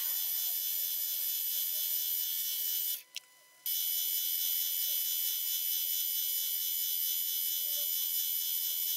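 Milling machine spindle running with a steady high whine while a small twist drill, about 2.5 mm, bores holes in the model chassis's front cross member. The sound breaks off for under a second about three seconds in.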